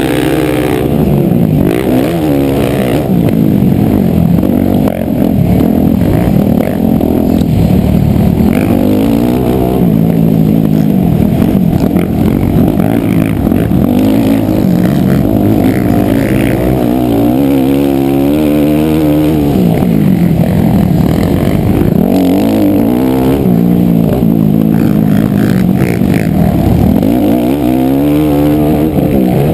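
Motocross dirt bike engine heard from the rider's helmet, revving up and dropping back over and over as the rider accelerates, shifts and backs off around the track.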